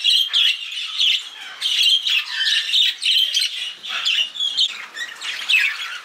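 A flock of budgerigars chattering, many short chirps and squawks overlapping without a break.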